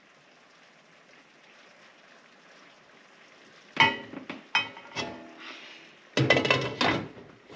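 Soft stirring in a cooking pot, then a few sharp metallic clinks about four and five seconds in. Near the end comes a louder ringing clatter as a glass pot lid with a steel rim is set on the metal pot.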